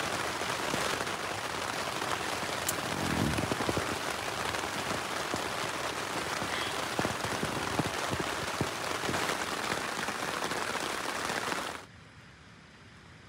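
Rain falling steadily on the tent's fabric, heard from inside the tent: a dense, even patter with scattered individual drops. Near the end it drops off suddenly to a much fainter hiss.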